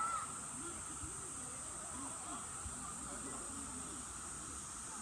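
Outdoor summer ambience: a steady high-pitched insect drone with faint distant voices.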